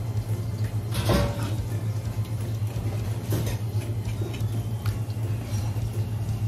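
Kitchen knife scraping and knocking against a plastic cutting board as a small fish is filleted, a few separate strokes, the strongest about a second in. Tap water runs onto the board under a steady low hum.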